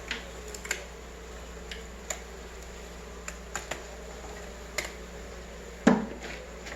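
Scattered light clicks and taps, with one louder knock about six seconds in, over a steady low hum.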